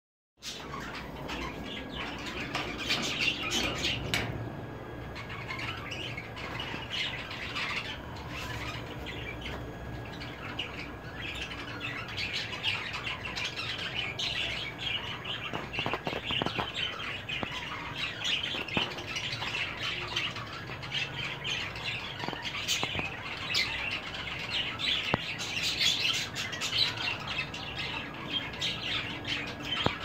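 Many birds chirping and squawking without a break, with a couple of sharp knocks.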